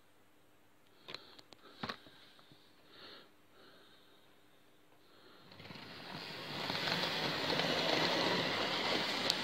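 Hornby OO-gauge Terrier model locomotive starting off and running along the track with its vans, a steady rushing of motor and wheels that builds from about five and a half seconds in. A couple of sharp clicks come earlier, about one and two seconds in.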